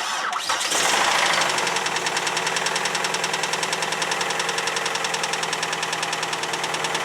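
2001 Chrysler PT Cruiser's four-cylinder engine starting and settling into a steady, even idle, running on its number 1 cylinder again after the spark plug was fitted into a repaired thread. The sound builds over the first second, then holds with a fast, regular firing pulse.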